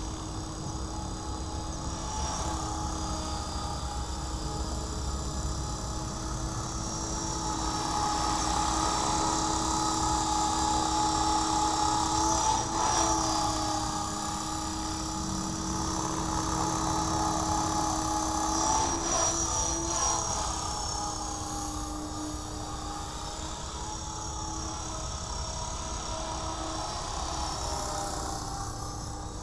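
Align T-REX 500 electric RC helicopter in flight: a steady rotor drone with a high motor whine. It grows louder in the middle, and the pitch swoops twice as it passes close.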